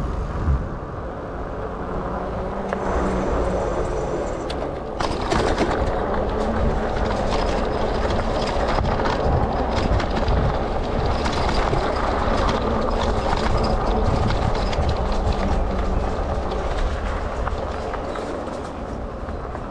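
Lectric XP e-bike riding over a rough, bumpy trail: its thick tyres rumble on the ground and the bike rattles. It gets louder about five seconds in.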